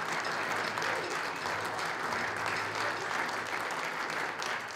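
Sustained applause from the audience and the band on stage, an even wash of many hands clapping that welcomes a performer onto the stage.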